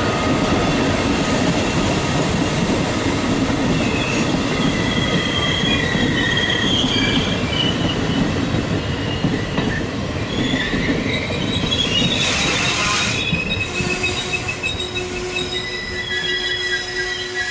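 Passenger train coaches rolling past on the rails with a steady rumble of wheels and track. High metallic squealing tones come and go from about four seconds in, with a short burst of hiss about twelve seconds in.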